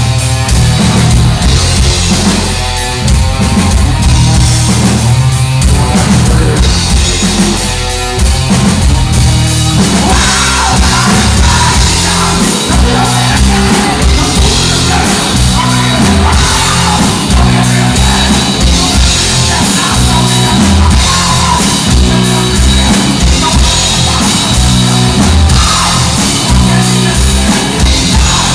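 Rock band playing loud, with distorted electric guitars through amplifiers, bass and a drum kit, and singing over it. The sound grows fuller about ten seconds in.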